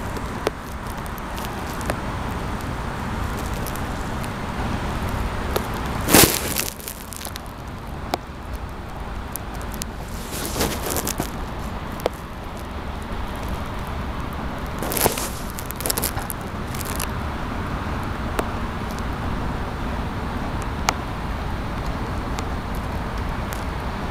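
Steady hum of distant road traffic, broken by a few short, sharp noisy bursts about six, eleven and fifteen seconds in.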